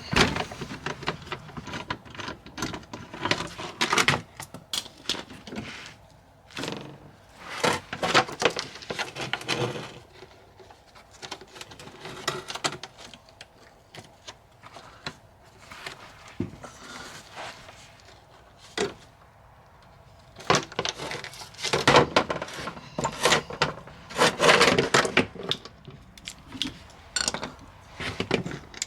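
Hand tools and metal bolts clinking, rattling and scraping in irregular clusters as front bolts are undone.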